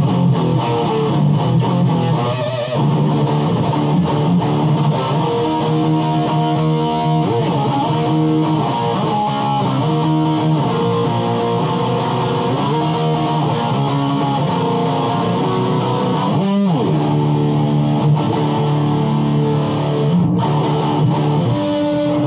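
Electric guitar playing riffs on the low strings, with a quick pitch slide about three-quarters of the way through.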